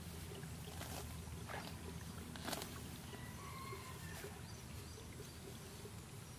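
Faint sloshing and trickling of shallow muddy water stirred by wading and hands, with a few light knocks, the loudest about two and a half seconds in.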